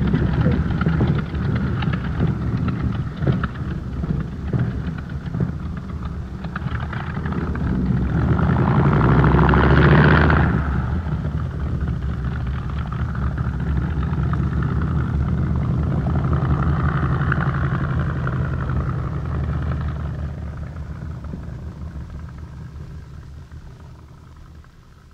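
Focke-Wulf 190 fighter's propeller engine running on the ground as the plane taxis, uneven with scattered pops. It swells louder about ten seconds in, then steadies and fades away over the last few seconds as the aircraft moves off.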